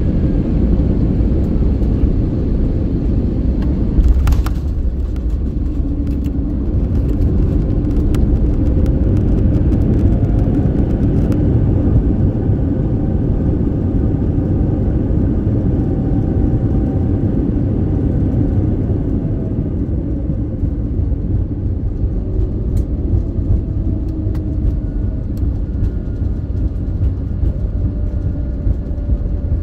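Airbus A321neo landing heard from inside the cabin: a sharp thump about four seconds in as the main wheels touch down, then the steady rumble of the gear rolling on the runway. The engine note rises soon after touchdown as reverse thrust is applied for braking, holds, and winds down past the midpoint as the aircraft slows.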